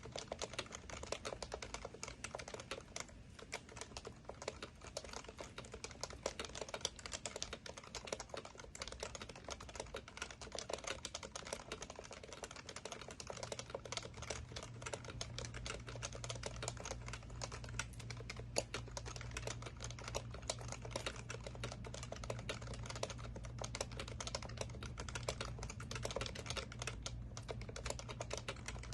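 Continuous fast typing on an HHKB Professional Classic keyboard with Topre switches: a dense, uneven stream of key presses. A steady low hum comes in about halfway through.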